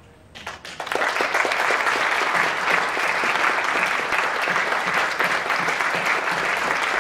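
Audience applauding. A few scattered claps come about half a second in, and within a second they swell into steady, full applause.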